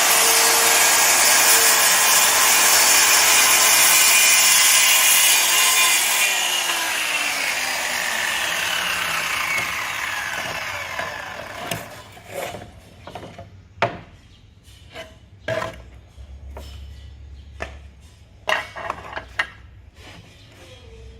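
A hand-held electric power tool working on camphor wood, its motor tone steady under loud noise. About six seconds in it is switched off and spins down over a few seconds, falling in pitch. Scattered knocks and clicks follow as wooden pieces are handled.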